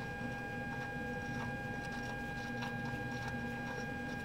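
A few faint, scattered clicks of a wrench working a high-pressure fuel injector line fitting on a Cummins ISB diesel, done while capping off the fuel rail to check each injector for a fuel pressure leak-down. Under the clicks runs a steady high-pitched hum.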